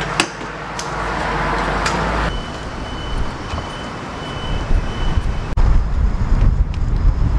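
Street traffic noise with a few clicks, then a thin steady high tone, and from about five seconds in heavy wind rumble on the microphone as a motor scooter rides along the street.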